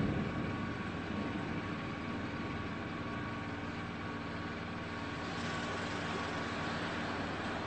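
Anak Krakatau erupting: an explosion boom fades over the first second into a steady low rumble.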